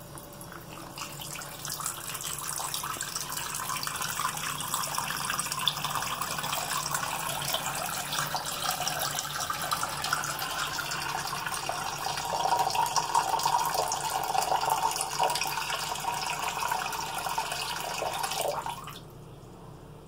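Homevacious chrome waterfall bathroom faucet running, a wide sheet of water pouring into a ceramic sink basin. The rush of water builds over the first couple of seconds as the lever is opened, runs steadily and grows louder for a few seconds past the middle, then stops abruptly near the end as the lever is shut.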